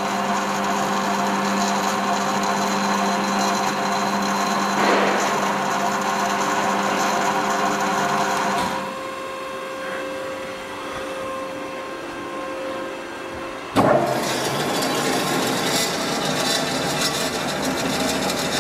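Kasto PBA 320/460 AV automatic horizontal bandsaw running, a steady machine hum with several fixed tones. About halfway through it goes quieter; a little later a single sharp clunk, and it runs louder again.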